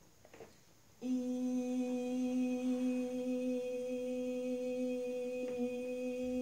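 A woman's voice holding one long, steady hummed or toned note, starting about a second in and sustained on a single pitch without a break, as vocal toning during a healing session.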